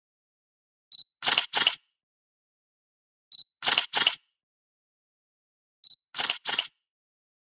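Camera shutter sound repeated three times, about every two and a half seconds: each time a short high focus-confirm beep, then a quick double click as the shutter fires and resets.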